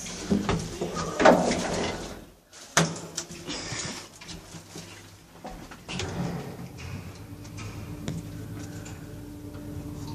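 Lift doors sliding with clunks and a sharp knock in the first few seconds, then a steady low hum of the lift running.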